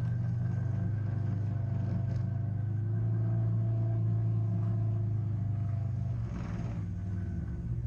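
Polaris RZR 900 side-by-side's engine running at low speed with a steady low drone. About six seconds in the drone drops off as it eases off the throttle, with a brief hiss at the same moment.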